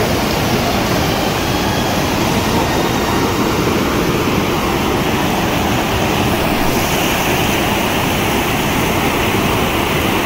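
Flash-flooded mountain river rushing past in a fast, muddy torrent: a loud, steady noise of churning water.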